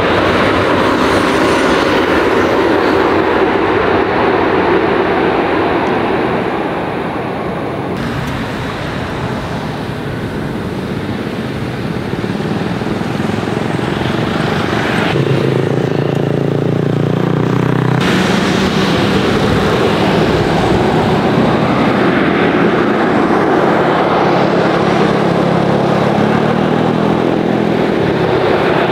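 Continuous jet airliner and airport noise: first a Boeing 737 MAX 8's CFM LEAP-1B turbofans running as it rolls out on the runway after landing, then, across abrupt cuts, steady engine and road traffic noise with a low engine tone rising slowly in pitch in the second half.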